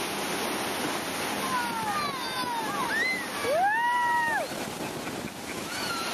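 Steady wind and water noise of a motor boat underway, with high sliding calls from children's voices over it; the longest and loudest call rises, holds and falls about three and a half seconds in.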